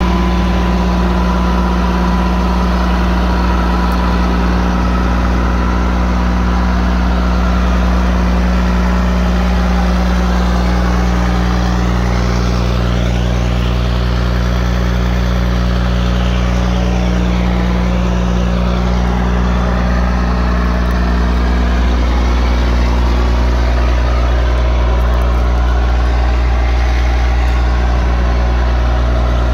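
Cat C7 inline-six diesel engine of a Ford F750 truck idling steadily.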